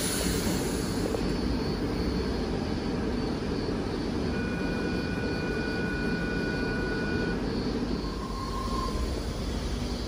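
Sydney Trains double-deck electric passenger train moving slowly past the platform, a steady low running rumble. A thin high whine rises over it for about three seconds midway.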